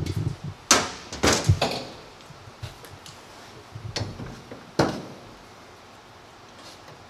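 Metal clanks and knocks as a truck's front strut assembly is set into a steel bench vise and the vise is worked. A sharp knock comes under a second in, a quick cluster of clanks follows around a second and a half, and another sharp knock comes near five seconds.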